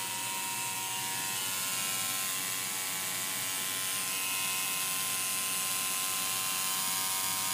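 Tattoo machine buzzing steadily as its needle works a long line of lettering into the skin of the wrist.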